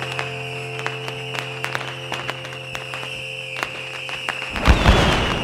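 A held music chord with scattered sharp pops over it. The chord cuts off about four and a half seconds in and a loud firework burst booms near the end.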